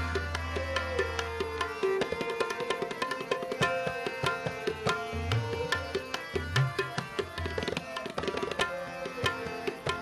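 Sikh shabad kirtan music in an instrumental passage between sung lines: tabla strokes with deep bayan bass notes, over a harmonium's sustained chords.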